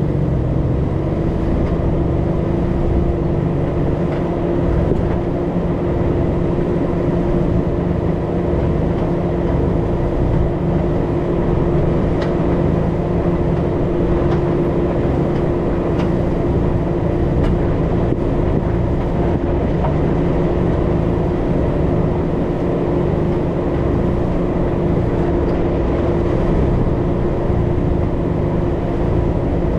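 Motor vehicle driving at a steady speed: an even, loud drone with a single steady tone held over it, no change in pace.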